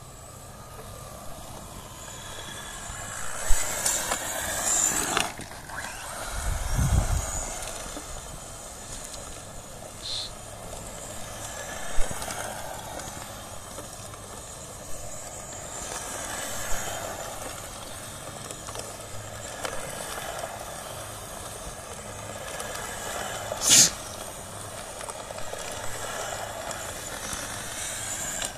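Tamiya XV-01 radio-controlled rally car driving on dirt, its electric motor whining up and down with the throttle, with a few sharp clacks along the way, the loudest near the end.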